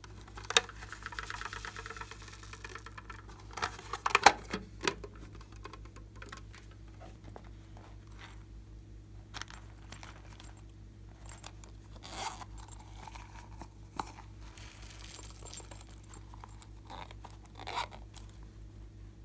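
Hands handling hard plastic toy cases: a soft rattle of foam beads shifting in a plastic box near the start, then a loud cluster of plastic clicks a few seconds in, followed by scattered lighter taps and clicks of plastic lids and cases.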